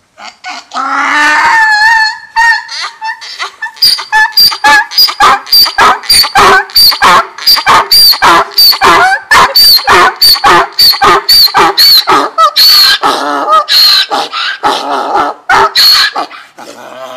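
Donkey braying: a long opening call, then a fast, even run of short hee-haw notes, about two to three a second, that stops near the end.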